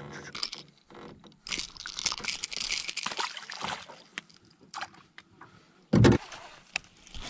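A butterfly peacock bass splashing at the water's surface as it is lowered on a lip gripper and released beside the boat, a hissing splash lasting a couple of seconds. Then a single loud thump against the boat about six seconds in.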